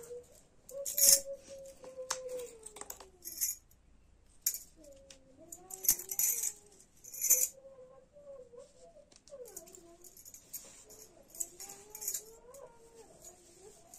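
Glass and metal bangles on both wrists jingling and clinking as the arms move about the head, a string of sharp clinks with the loudest about a second in. A faint wavering tone that rises and falls comes and goes underneath.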